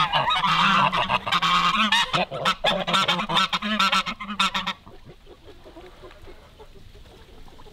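Domestic geese honking loudly and repeatedly at a feed trough, stopping abruptly about five seconds in.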